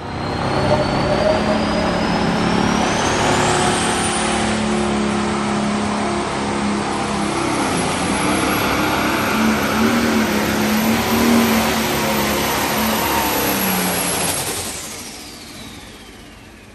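Light pro stock pulling tractor's turbocharged diesel engine running flat out through a pull, with a high whine that climbs steeply over the first four seconds. About fifteen seconds in, the engine comes off the throttle and the whine falls away as the sound dies down.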